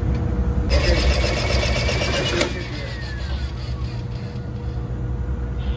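Steady low machinery hum of a ship's engine spaces. A burst of rapid, evenly spaced mechanical clicking about two seconds long starts under a second in and stops abruptly, followed by a faint falling tone.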